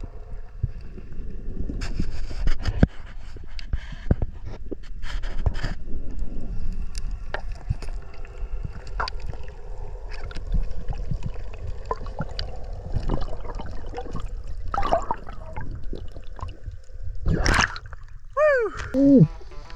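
Water sloshing and gurgling, with many scattered clicks and knocks. Near the end comes a louder burst, then two tones that fall steeply in pitch.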